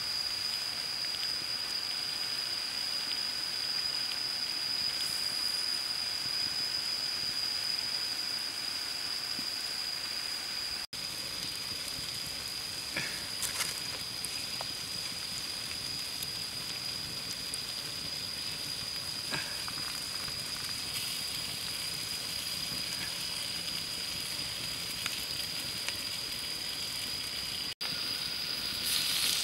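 Squid sizzling as it cooks on a hot slab over a wood fire, a steady hiss with a few scattered crackles. A steady high-pitched tone runs through it.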